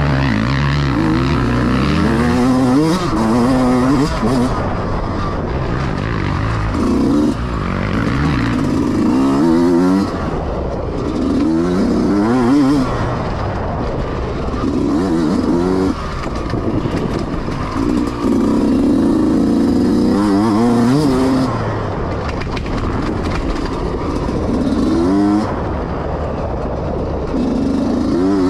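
Dirt bike engine under hard riding, revving up and easing off over and over.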